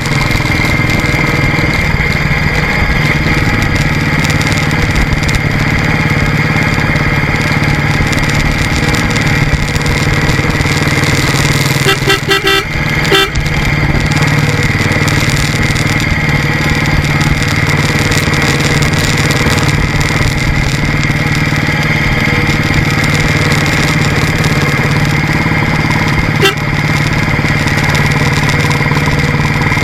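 Royal Enfield motorcycle engine running steadily under way, with road and wind noise. About twelve seconds in, a vehicle horn gives a quick series of short beeps.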